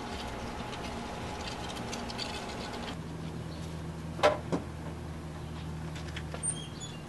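Two sharp knocks on a front door, about a quarter second apart, a little over four seconds in, over a steady low hum.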